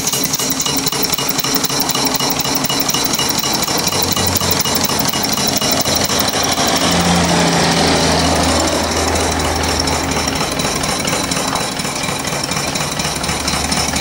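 Small homemade single-cylinder steam engine, 1.870-inch bore by 2-inch stroke, running fast on steam from its boiler, a steady, rapid mechanical beat with a hiss of steam.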